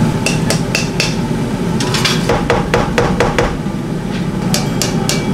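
Sharp clicks and knocks in quick runs as a plastic jar opener taps and works at the lid of a glass jar of chili bean paste, a lid that is stuck and hard to open. A steady low noise runs underneath.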